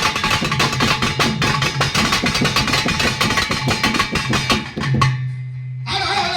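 Pambai drums played in fast, dense strokes of Tamil temple music. About five seconds in, the strokes break off for roughly a second, leaving a low steady hum, and the music starts again near the end.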